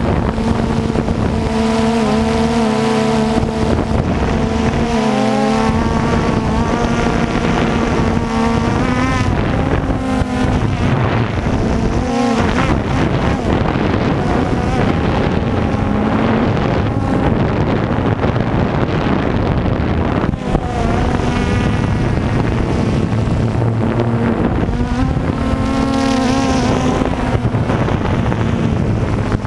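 Drone's motors and propellers whining steadily, the pitch wavering up and down as the motors change speed, with wind buffeting the microphone.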